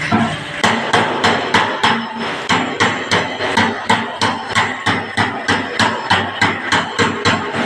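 Bumping file slapping a steel car body panel in a steady rhythm, about three strikes a second, each with a short metallic ring, working out a small remaining dent.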